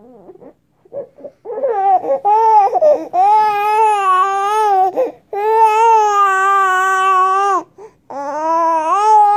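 Baby crying on her tummy in four long, steady wails, each one to two seconds long, beginning about a second and a half in.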